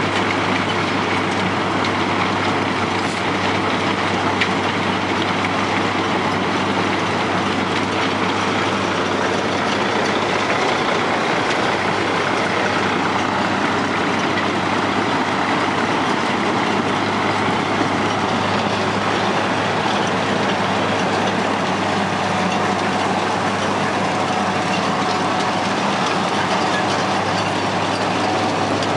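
Dynapac PL2000LS cold milling machine working under load: a steady heavy diesel drone with a dense grinding rush from the cutting drum and the millings pouring off the conveyor into a side-dump trailer. A semi tractor's diesel runs close by.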